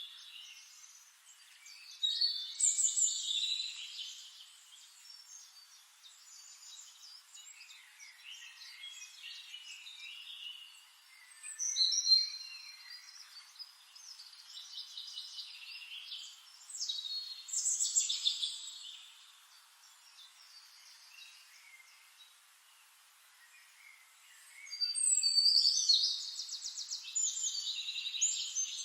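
Songbirds singing and chirping in separate bursts of song, with quieter stretches between. Near the end comes a longer, louder run of quick repeated trilled notes.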